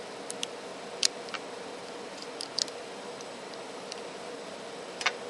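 Metal tweezers clicking against a mobile phone's frame and circuit board during disassembly: scattered small sharp clicks, the loudest about a second in and another near the end, over a steady background hiss.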